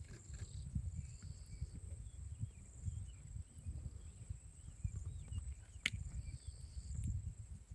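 Outdoor ambience: a low, uneven rumble under a steady high insect-like hum and faint chirps. A single sharp click comes just before six seconds.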